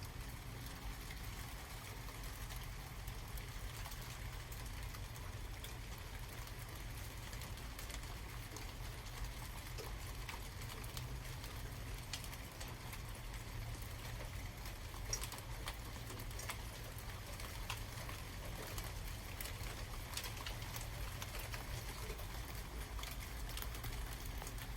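Light rain after a thunderstorm: scattered irregular drips and drops over a steady low rumble.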